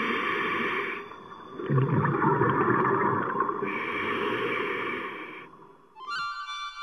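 Scuba diver's breathing heard underwater: hissing regulator breaths and rumbling exhaled bubbles, with a lull about a second in. The breathing stops about six seconds in, and music begins near the end.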